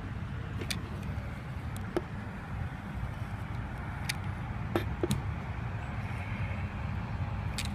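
Steady low outdoor rumble with a few short, light clicks and taps from handling an infrared thermometer and the open hatch of an electric RC boat.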